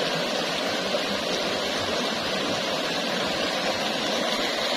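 River water rushing steadily over rocks in a shallow riffle, an even, unbroken rush.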